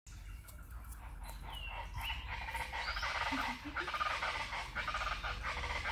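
Birds chirping and chattering, with a few short high whistled calls sliding down and then up in the first seconds, over a steady low rumble.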